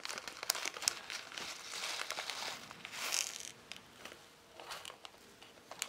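A small clear plastic bag of 3 mm round beads crinkling and crackling as fingers open it, with a brief denser rustle about three seconds in as the beads are tipped out onto fabric.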